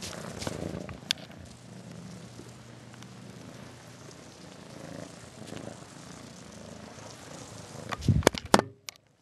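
Domestic cat purring steadily close by, swelling and easing with its breathing. About a second in there is a single click, and just after eight seconds a short cluster of loud knocks and rubbing, after which the sound drops away.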